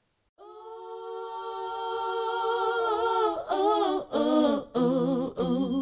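A single voice singing unaccompanied: one long held note that swells in loudness, then a short run of notes with vibrato, separated by brief breaks.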